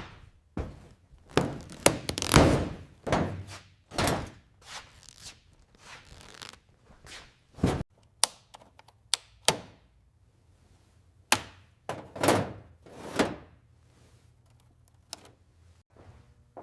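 An irregular series of hard knocks and thunks, about a dozen, some sharp and some with a short ring after them, with quiet gaps between.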